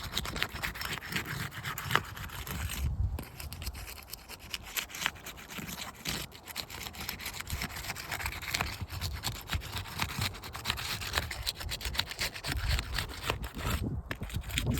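A roof snake (flat shingle-removal bar) scraping and prying under asphalt shingle tabs, breaking their sealed strips loose so the nails can be pulled; an irregular run of scrapes and crackling clicks.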